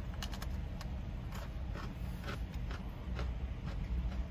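A crunchy keto chocolate sandwich cookie being chewed: a string of short, soft crunches spread over a few seconds, over a low steady rumble.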